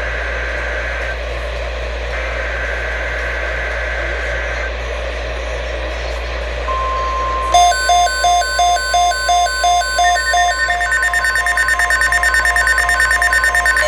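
NOAA Weather Radio EAS alert through a receiver's speaker, announcing a Flash Flood Watch. Over radio hiss come two bursts of the SAME header's data tones, then about seven seconds in the steady 1050 Hz warning tone begins. Within a second a weather-alert receiver's alarm starts beeping about four times a second, quickening a few seconds later.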